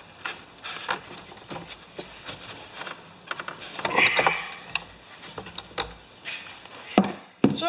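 Irregular clicks, knocks and light scraping of hand tools and small parts being handled during reassembly of a small two-stroke leaf blower after its spark plug is put back in.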